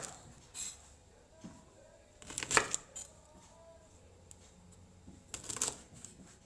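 Kitchen knife chopping through a bundle of green beans onto a wooden cutting board: a few groups of quick cuts, the loudest about two and a half seconds in.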